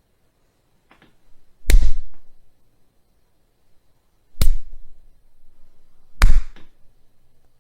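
Slap sound effects: three separate, sharp slaps a couple of seconds apart, each with a short smack-like tail, after a faint one about a second in.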